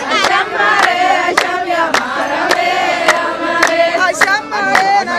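A group of voices singing a chant-like song, with sharp claps keeping an even beat a little under twice a second.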